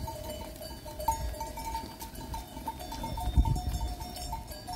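Bells on a large flock of sheep ringing: several bells of different pitch clink over and over, on top of a low rumble.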